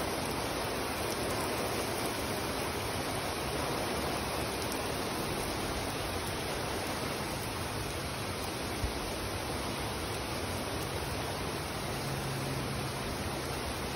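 Heavy rain pouring steadily onto wet pavement, an even hiss, with a single brief low thump about nine seconds in.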